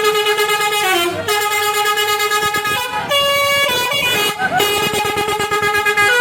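Indonesian bus 'telolet' horn, a multi-tone musical air horn, sounding a tune of long held notes that step in pitch, with brief breaks between them.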